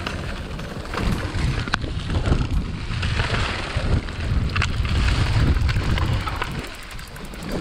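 Wind rushing over a mountain bike camera's microphone while riding, with tyres rolling over dry fallen leaves and sharp knocks as the bike rattles over bumps. The rush is loudest in the middle and eases near the end.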